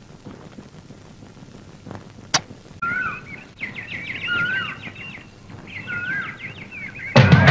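Small birds chirping: quick twittering trills and a short rising-and-falling whistled phrase, repeated several times, starting about three seconds in after a single sharp click. Music comes in loudly just before the end.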